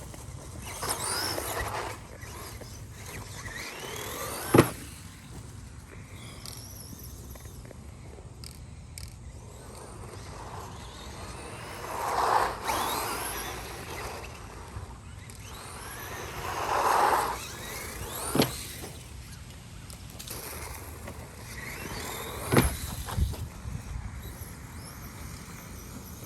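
Radio-controlled ECX Boost buggy with a Traxxas brushed electric motor running: its whine rises in pitch as it speeds up, swelling three times as it passes close. Four sharp knocks come from the chassis hitting bumps or landing.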